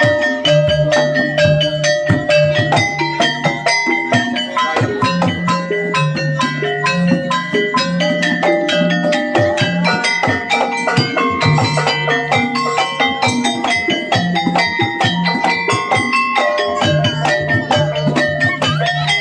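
Javanese gamelan music for a kuda kepang dance: many struck metal keys and gongs ringing in a fast, dense pattern over a steady drum pulse.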